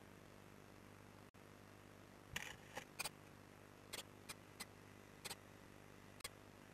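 Adult blue tit's claws scratching and tapping on the wooden nest box as it comes in to feed the chicks: a short scrape about two seconds in, then about eight sharp clicks spaced over the next four seconds, over a faint steady hum.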